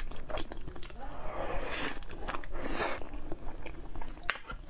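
Close-miked chewing and biting of a chunk of glazed braised meat, with many sharp wet mouth clicks and smacks and two longer noisy smacking stretches around the middle.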